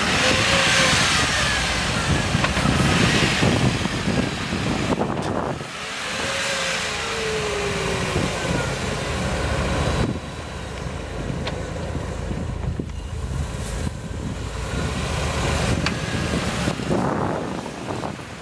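Land Rover Discovery I engine revving and falling back again and again while its tyres spin in deep snow as it tries to drive out. The revs are higher in the first ten seconds, then ease off.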